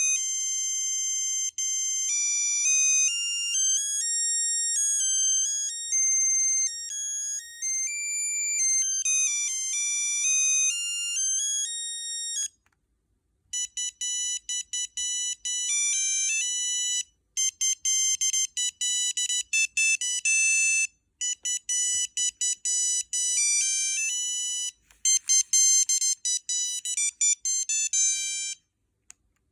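Nokia 6340i cell phone playing its built-in ringtones as electronic beeping melodies. One flowing tune stops about twelve seconds in, and after a short pause a second, faster tune of quick repeated notes starts, with a few brief breaks.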